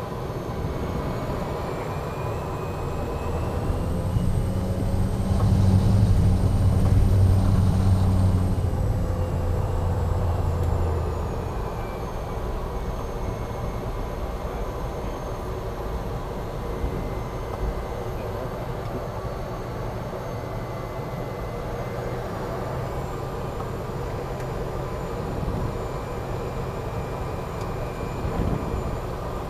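Cessna Caravan amphibian's PT6A turboprop and propeller at low power, heard from the cockpit: a steady drone with a high turbine whine. A few seconds in, power comes up as the floatplane climbs the ramp out of the water: the whine rises and the propeller hum grows loud for several seconds. Power then eases back to a taxi setting, and the whine rises a little again later.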